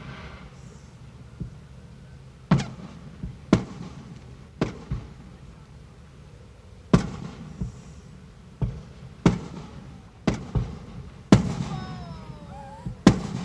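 Aerial fireworks shells bursting: about a dozen sharp booms at irregular intervals, each with a short echoing tail.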